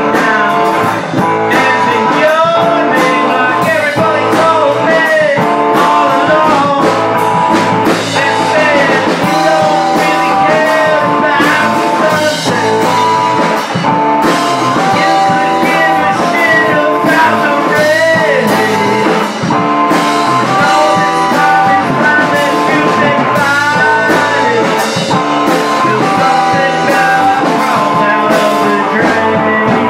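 A rock band playing live: electric guitar, bass guitar and drum kit in a loud, steady mix, with a melody line that bends up and down in pitch over the top.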